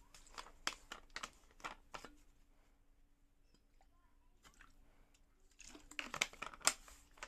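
Faint crinkling and crunching from small materials handled by hand, such as foil, cotton and a plastic bottle. It comes in two bursts of quick crackles, one at the start and one shortly before the end.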